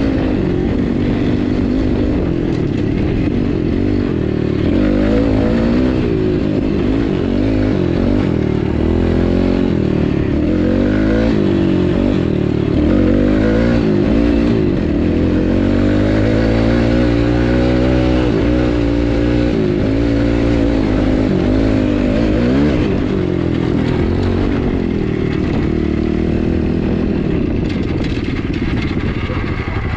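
Dirt bike engine running while being ridden, its pitch rising and falling again and again as the throttle opens and closes through the gears. Near the end it drops to a lower, uneven beat.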